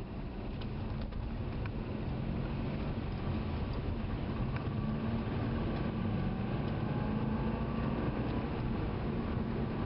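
Car engine and tyre noise heard from inside the car on a wet, slushy road, growing louder over the first few seconds as the car picks up speed, with a few faint clicks near the start.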